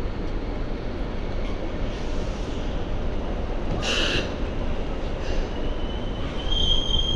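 MTR Light Rail Phase III tram car arriving at the platform: a steady low rumble of the car running in, a short sharp burst about four seconds in, and a thin high wheel squeal that rises near the end as the car draws alongside.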